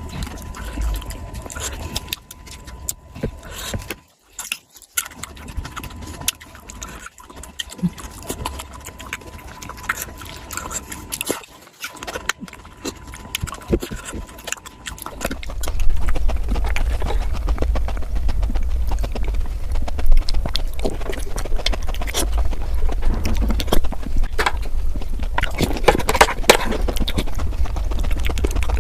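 Eating sounds played back at five times speed: a fast, dense run of mouth clicks and smacks. About halfway through it gets louder, with a low rumble underneath.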